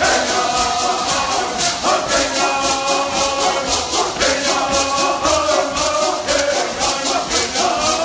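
Traditional bird song: a group of voices chanting together in unison, accompanied by hand rattles shaken to a steady beat.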